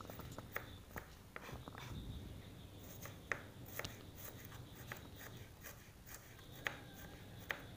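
Kitchen knife slicing shallots on a plastic cutting board: faint, irregular taps as the blade meets the board.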